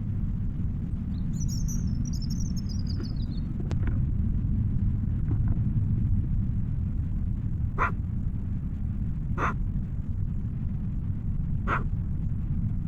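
Steady low outdoor rumble on a trail camera's microphone, with a songbird singing one falling phrase about a second in and three short calls or barks in the second half.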